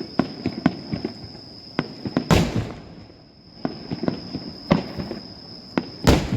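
Aerial fireworks bursting: a string of sharp cracks and pops, with two heavy booms about two seconds in and again near the end.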